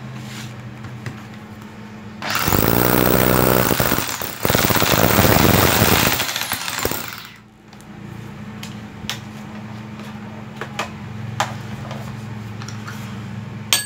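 Hitachi 440 W hammer drill running unloaded in hammer mode: it spins up about two seconds in, dips briefly, runs again and stops about seven seconds in. The rest is a steady low hum with a few light clicks.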